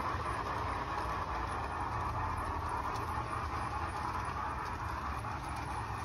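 LGB mogul large-scale model steam locomotive running on an outdoor garden track with its freight train, a steady rumble and hiss from its aftermarket sound unit and the wheels rolling on the rails.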